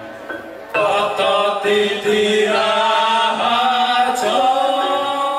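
Javanese kuda lumping dance music. After faint ringing mallet tones, a group of voices comes in loudly at once, a little under a second in, with a chant of held notes that step from pitch to pitch.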